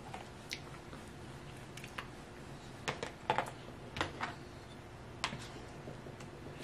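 A spoon clicking and tapping on a plate as cake and ice cream are eaten: a few light, irregular taps spread over several seconds, the busiest around the middle.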